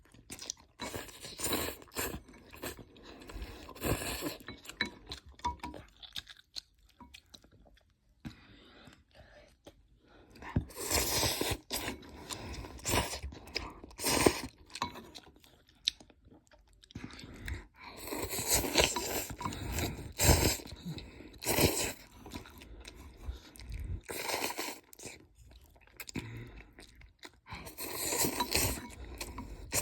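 A person chewing and crunching a mouthful of spicy noodles, in bursts with short pauses between.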